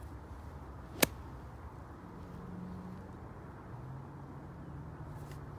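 A single sharp click about a second in, over faint outdoor background; a low steady hum comes in about two seconds in.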